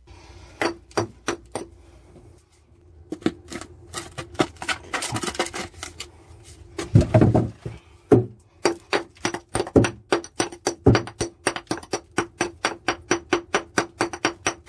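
Hammer blows on a concrete block wall, knocking out the hole-sawn core: scattered strikes at first, a heavier thud about seven seconds in, then quick, even blows about four a second, each with a short ring.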